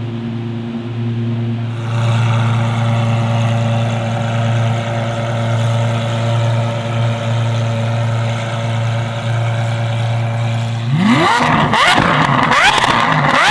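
Lamborghini Aventador SVJ V12 engine with a Gintani F1 exhaust holding a steady drone. About eleven seconds in it opens up into hard acceleration, with the revs climbing steeply again and again and sharp exhaust crackles.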